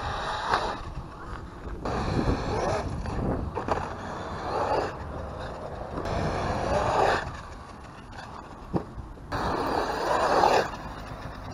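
Electric RC truck driven hard on concrete: its motor whine rises and falls in several bursts of acceleration, over the rush of tyres on the rough surface, with an occasional sharp knock.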